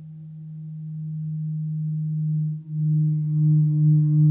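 A 30-inch Earth gong sounded by a flumie friction mallet rubbed across its face, drawing out a steady low hum with a higher overtone that swells in loudness. About two and a half seconds in the hum briefly dips out, then comes back louder with a pulsing wobble about three times a second.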